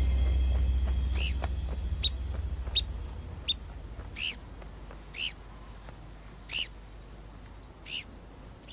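A bird giving a series of short, high chirping calls, about one a second. Early on they sit over a low music drone that fades out.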